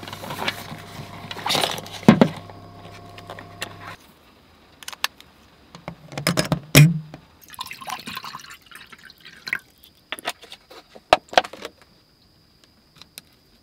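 Electric oral irrigator in use: its small pump motor hums steadily for about the first four seconds and then stops. Water trickling and splashing follows, with scattered clicks and knocks.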